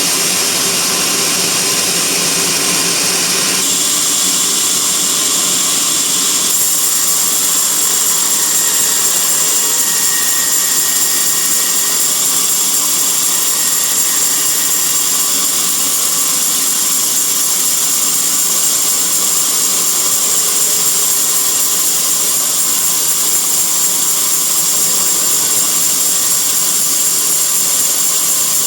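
Band sawmill running steadily with a loud, high whine and hiss, its sound shifting about three and a half seconds in and again about six and a half seconds in.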